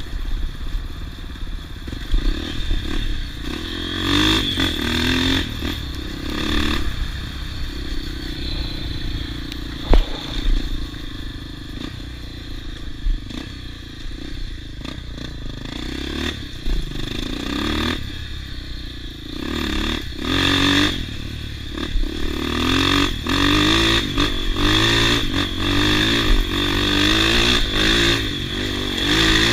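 Off-road motorcycle engine running and revving again and again, its pitch climbing with each burst of throttle, the revs coming more often in the second half. A single sharp knock about ten seconds in.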